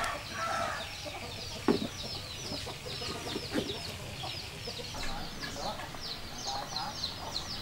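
Chickens calling in a yard: a steady run of short, high, falling calls several times a second, with lower clucks now and then. A sharp knock sounds about one and a half seconds in.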